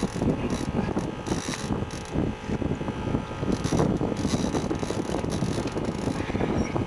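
Wind buffeting the camera microphone: an uneven low rumble, with a few short hissy bursts about a second and a half in and near the four-second mark.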